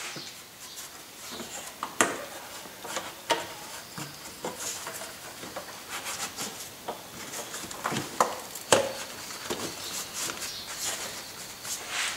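Rubber air intake tube being worked back onto a throttle body by hand: scattered rubbing and light knocks and clicks of rubber against plastic and metal, with a few sharper knocks about two seconds in and again around eight to nine seconds.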